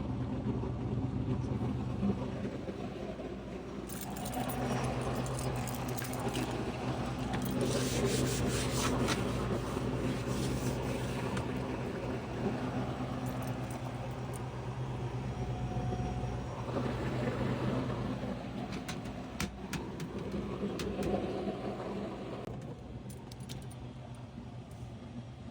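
A steady low mechanical hum, with bouts of rustling and clinking like jangling keys over it; the hum fades out near the end.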